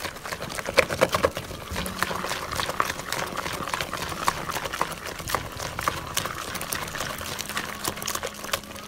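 Wire whisk beating thick cultured cream in a plastic bowl: many quick, wet, irregular clicks and squelches as the wires churn through it. The cream is breaking into butter grains and buttermilk.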